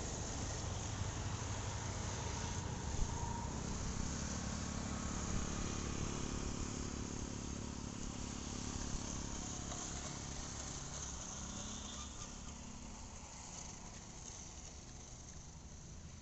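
Steady high-pitched drone of insects over a low rumble, fading gradually toward the end.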